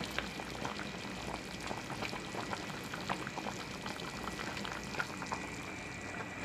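A pot of chicken tinola broth boiling steadily, a constant bubbling with many small pops.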